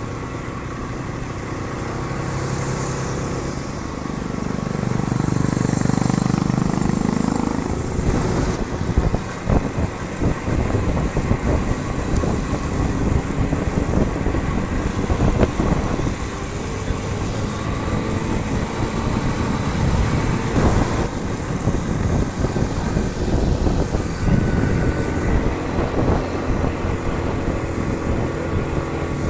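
Honda Super Cub 50's small air-cooled single-cylinder four-stroke engine running steadily while riding uphill, with a louder swell about five seconds in.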